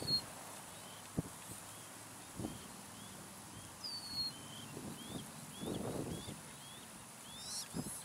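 Sandhill crane colts peeping: a run of short, faint, high rising peeps a fraction of a second apart, with one longer falling whistle about four seconds in. A single soft knock about a second in, and some low rustling near the end.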